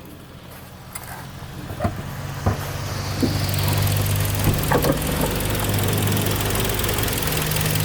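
Kia Sportage 3's freshly rebuilt G4KD 2.0-litre four-cylinder engine idling hot with a steady low hum, growing louder over the first few seconds, with a few sharp clicks early on. It runs quietly with no extra noises after the overhaul.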